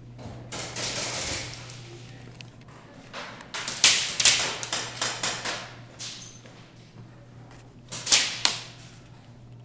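Airsoft electric guns firing in rapid bursts, three clusters of fast sharp clicks and cracks, the longest and loudest from about three and a half to six seconds in. A steady low hum runs underneath.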